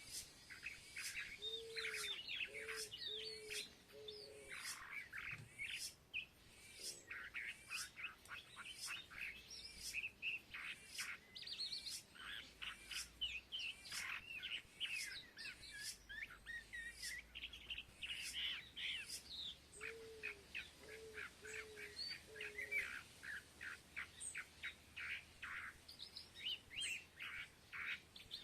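Many small birds chirping and twittering at once, with quick overlapping calls and no pause. Twice a lower bird call breaks in, a short run of four or five low notes, about two seconds in and again about twenty seconds in.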